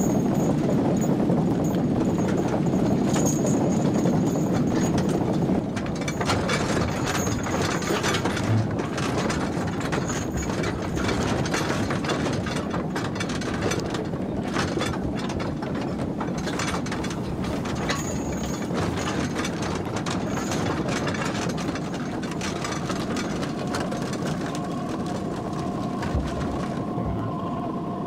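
Horse-drawn cart rolling, with clicking and knocking from the cart over a dense low rumble that is louder in the first few seconds. About three-quarters of the way through, two steady high tones come in.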